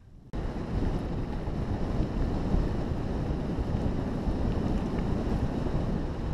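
Wind buffeting the microphone of a camera on a mountain bike speeding down a gravel forest track, mixed with the rumble of the tyres on the gravel. It cuts in suddenly just after the start and holds steady and loud.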